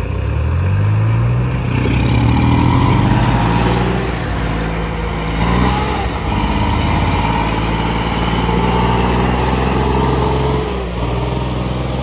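Tractor diesel engine revving up over the first couple of seconds, then held at high revs and straining under a heavy pulling load, easing slightly near the end.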